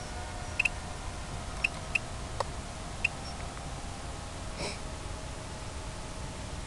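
Faint, steady whine of distant electric model-plane motors over a constant hiss and low rumble, with a few short high chirps and a click in the first three seconds.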